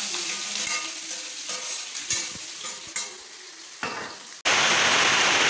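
Meat frying in a wok on a gas stove, sizzling, while a metal spatula stirs and scrapes it with a few sharp clinks against the pan. About four and a half seconds in, the sound cuts abruptly to a much louder steady hiss.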